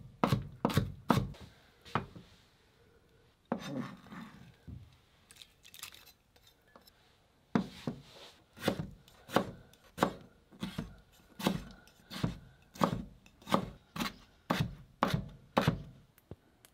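Steel chef's knife chopping on a plastic cutting board. First comes quick dicing of onion; then, after a few seconds of softer handling sounds, an even run of chops at about two a second as pickled daikon (takuan) is diced.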